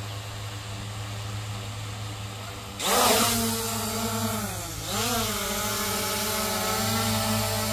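SJRC F11 4K Pro quadcopter's brushless motors and propellers humming steadily at idle on the ground. About three seconds in they spin up sharply and louder as the drone lifts off, then the whine dips once and settles into a steady hover.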